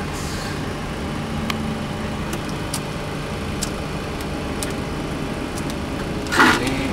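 Steady hum of a Boeing 737 flight deck, with a few faint clicks of overhead-panel toggle switches being flipped. A brief louder rush comes near the end.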